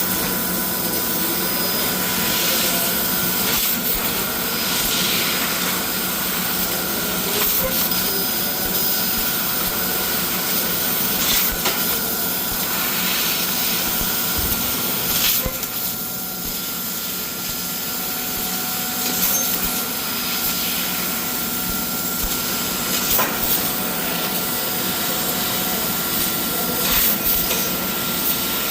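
CNC laser cutting machine cutting steel sheet: a steady hiss over a constant machine hum, with occasional sharp clicks and pops.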